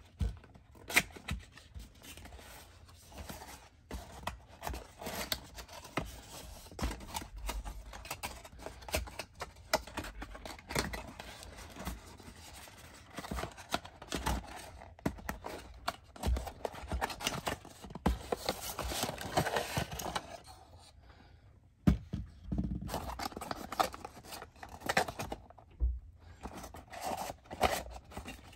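A cardboard perfume box being handled and opened by hand: scraping and rustling of the card with many small clicks and knocks as it is turned over and the bottle is taken out. Near the end there is a short pause, then a sharp knock as something is set down on the counter, and the handling goes on.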